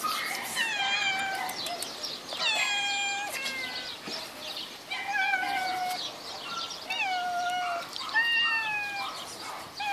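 Cats in a wire-mesh enclosure meowing: about five long, drawn-out meows, a second or two apart.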